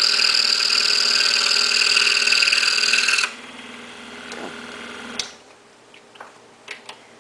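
Excalibur scroll saw cutting through a wood blank with a steady buzz. About three seconds in it is switched off, runs down quieter and stops about two seconds later, followed by a few light clicks.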